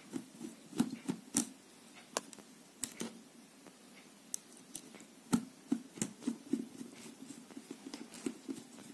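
A screwdriver working a terminal screw on an angle grinder's switch: irregular small clicks and scrapes against the metal terminal and plastic housing, the sharpest about five seconds in.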